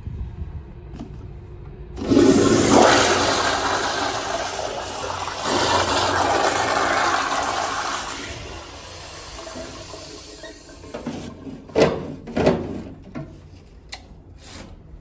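American Standard toilet flushing. The rush of water starts suddenly about two seconds in, swells again partway through and dies away. Two sharp knocks follow, then a few lighter clicks.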